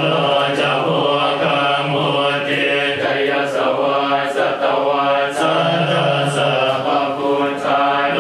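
Buddhist monks chanting Pali verses together: a continuous, steady drone of low male voices in a measured recitation rhythm.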